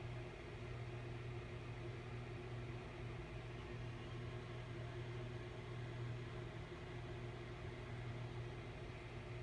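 Steady low electrical or mechanical hum with a faint even hiss: constant room background noise with no events in it.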